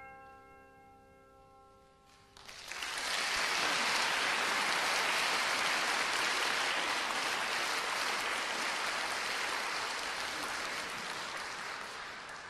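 The last piano chord of a piece rings and fades away, then audience applause breaks out about two and a half seconds in and carries on steadily.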